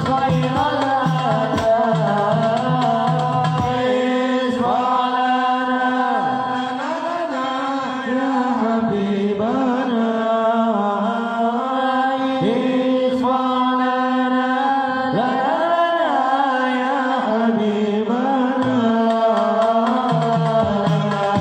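A group of men chanting sholawat, devotional Islamic songs of praise to the Prophet, in unison through a microphone. The sung lines are long and wavering.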